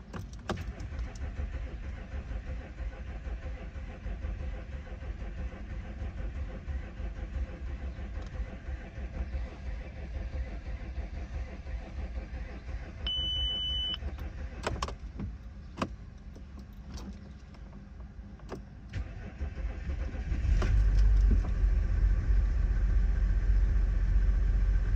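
Audi 3.0 TDI V6 diesel struggling to start cold, a long choppy low rumble with a short beep and a few clicks about halfway, then catching a little after 20 s in and running loud and steady. The hard start comes from low compression on cylinders 5 and 6, as the owner reports.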